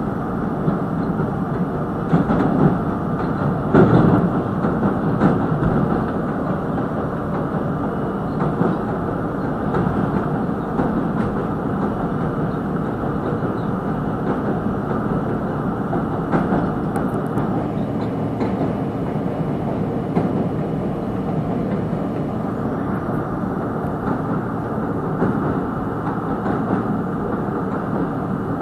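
R32 subway train running at speed across a steel bridge, heard from the open front window of the lead car: a steady rumble of steel wheels on rail, with occasional sharp knocks, the loudest a few seconds in.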